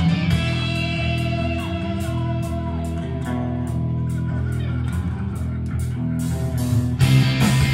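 Live punk band playing: electric guitars, bass and drums through a venue PA, getting louder about seven seconds in.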